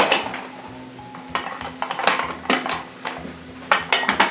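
Irregular clinks and knocks of containers and utensils being handled on a table, over faint background music with a steady low tone.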